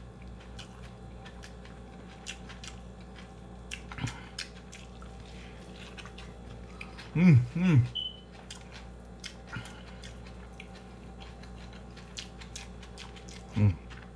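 A person eating fried egg and rice by hand, with soft chewing, small wet mouth clicks and squishes of the food being torn. Two brief hums about seven seconds in and another near the end are the loudest sounds.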